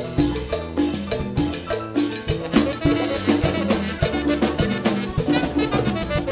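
Upbeat instrumental music with a steady beat of drums and percussion under short repeated melodic notes.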